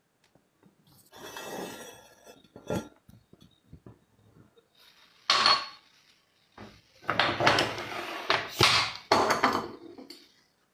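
A drinking glass and kitchen utensils being handled on a stone worktop: scattered knocks and clatter, a sharp ringing clink about five seconds in, and a busier run of clattering and scraping in the second half.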